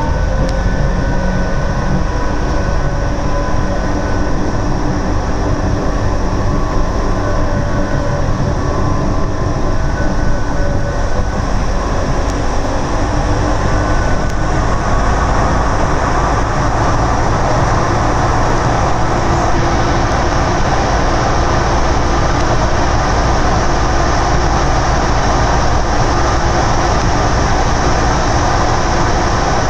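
Orlyval VAL rubber-tyred automated metro running, heard from inside the car: the electric traction whine rises in pitch near the start as it picks up speed, then a steady running rumble that grows fuller once it enters a tunnel about halfway through.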